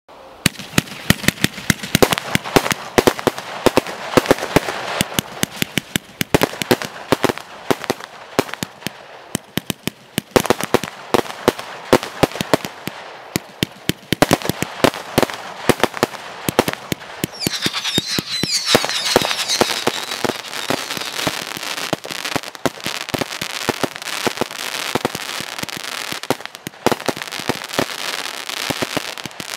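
A 100-shot angled firework barrage firing in rapid succession: a dense, fast run of launch reports and bursting stars. A little past halfway, whistling tails add a brief wavering whistle.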